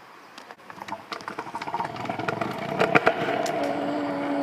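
Scooter wheels rolling over rough asphalt with a clattering rattle, getting louder as it picks up speed; a steady hum comes in near the end.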